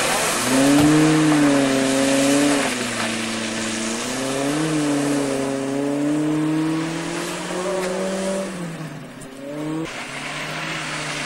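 Small Suzuki SJ-type 4x4's engine revving hard through deep mud, its pitch rising and falling as the throttle is worked and easing off briefly near the end, over a steady hiss of wheels churning and spraying mud and water.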